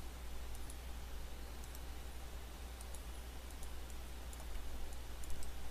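A few faint, sharp computer mouse clicks over a steady low electrical hum and hiss.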